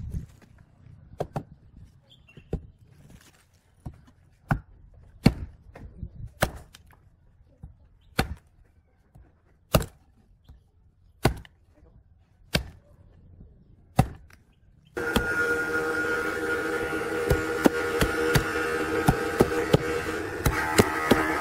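Homemade axe, its head made from railway rail, chopping through a green sapling stick on a wooden plank: a string of single sharp chops, about one every second or so. A little over halfway through, background music comes in and the chops go on under it.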